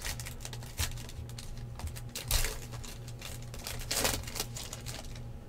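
Trading-card pack wrappers being torn open and crinkled: short rips and crinkles, the biggest about two and a half and four seconds in.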